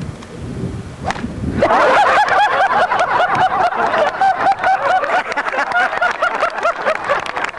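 A single sharp strike of a golf club hitting the ball about a second in, then a crowd of spectators clapping and cheering.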